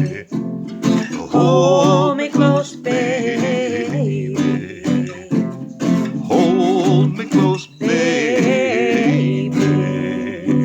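Music: acoustic guitar strumming with a wavering melody line over it, the level starting to drop near the end.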